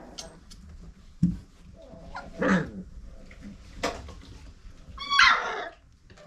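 Five-week-old Old Family Red Nose pit bull puppies playing, with a knock, short yips and a loud whining yelp near the end.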